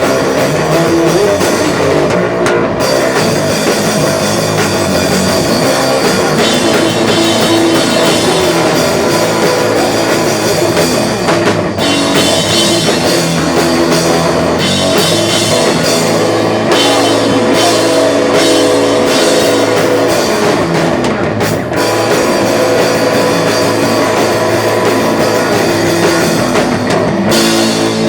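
Rock band playing live and loud without a break: drum kit and guitar.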